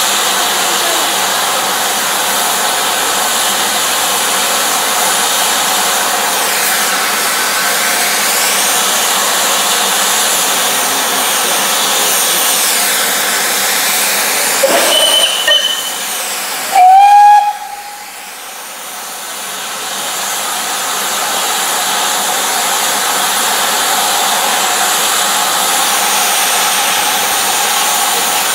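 Steam locomotive 35005 Canadian Pacific, a Merchant Navy class Pacific, with steam hissing steadily. About halfway through there is a short higher whistle, then the engine's whistle blasts very loudly for about a second. After that the hiss drops away and builds back up.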